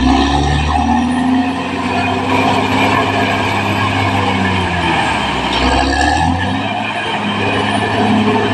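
Caterpillar D6R XL bulldozer's diesel engine running under load with a steady drone; its note dips and surges about five to six seconds in.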